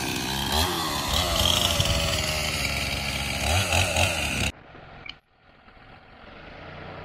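Gas chainsaw running and revving up and down twice, then cutting off abruptly about four and a half seconds in, leaving a faint hiss.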